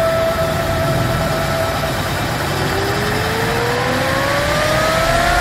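A motor vehicle running, with a steady whine that fades out, then a whine that rises smoothly in pitch over a rushing noise as it speeds up.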